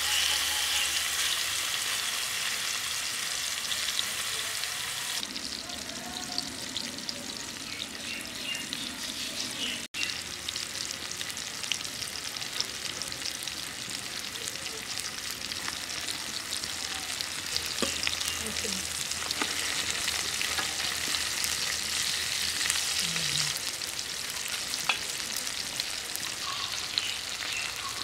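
Hilsa fish steaks frying in hot oil in a pan: a steady sizzle dotted with many small crackles and pops, broken by a brief cut about ten seconds in.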